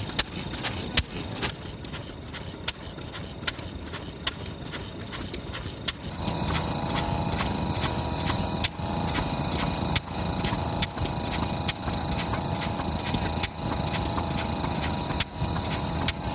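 Large Kubota FF-type 10 hp single-cylinder stationary engine running with a rapid ticking beat broken by irregular louder knocks: it is misfiring on a fouled or worn spark plug. About six seconds in, a steady droning hum from another running machine joins.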